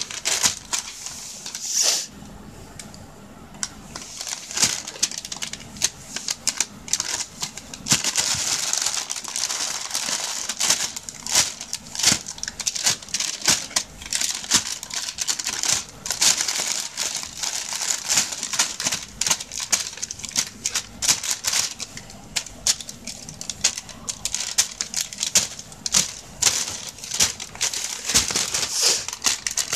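Thin plastic shopping bag crinkling and crackling in quick, irregular bursts as a cat paws and pounces at a feather teaser moving inside it. The crackling is sparse at first and gets busier from about eight seconds in.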